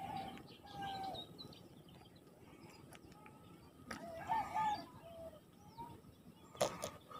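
Faint bird calls, short wavering notes in two spells, about the start and four seconds in, with a few sharp clicks, the loudest near the end.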